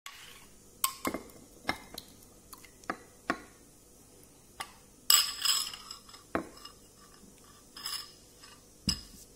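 A metal spoon clinking and scraping against a ceramic bowl while curd is scraped out into a glass container: a series of sharp separate clinks and knocks, with a longer scrape about five seconds in and a shorter one near the end.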